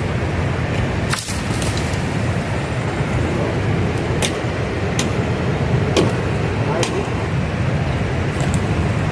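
Steady rush of river rapids, with a few sharp clicks or knocks over it.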